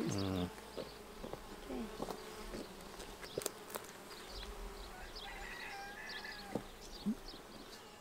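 Honey bees buzzing around an open hive, a steady hum, with a few sharp clicks from the wooden frames being handled a few seconds in.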